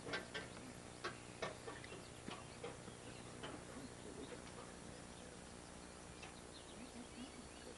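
Quiet outdoor background with a few faint sharp clicks and ticks in the first few seconds, then a few faint high bird-like chirps near the end.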